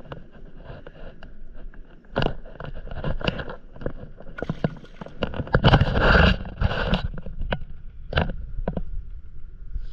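Handling knocks and rustles on a stand-up paddleboard, and water splashing as a fishing float and its line are dropped into the sea. The loudest rush of noise comes a little past the middle.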